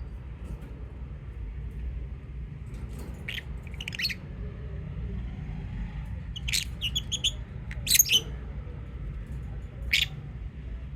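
Lovebirds giving short, shrill chirps and squawks in scattered clusters, the loudest about eight seconds in, over a steady low background rumble.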